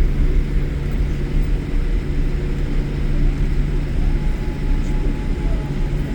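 Airliner landing: a steady low rumble with a constant engine hum, and a faint higher tone joining about four seconds in.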